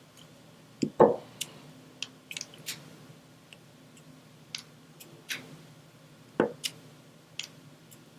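Diamond painting at work: small, irregular clicks and ticks of resin drills being picked up and pressed onto the sticky canvas, with two louder, duller taps, one about a second in and one about six seconds in.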